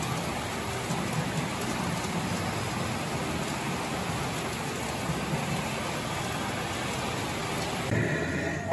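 Steady din of a pachinko parlour: a dense, even clatter of steel balls and machines that sounds like heavy rain. About 8 s in it cuts to a pachinko machine's own electronic sounds.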